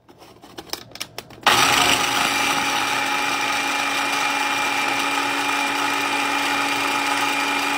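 A few clicks and knocks, then about a second and a half in a small electric food chopper's motor starts and runs steadily at one pitch as its blade chops onion, garlic and cilantro for sofrito.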